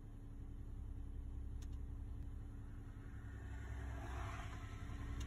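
Diesel engine of a concrete mixer truck idling with a steady low rumble, and a short burst of noise about four seconds in.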